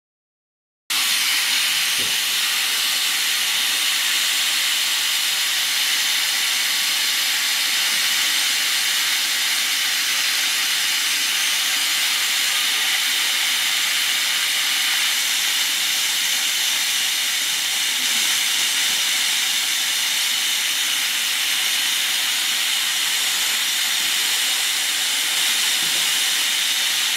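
Electric high-speed dental handpiece running at about 200,000 rpm with a 330 carbide bur and water spray, cutting out the old composite filling of an upper first molar: a steady hissing whine that starts suddenly about a second in.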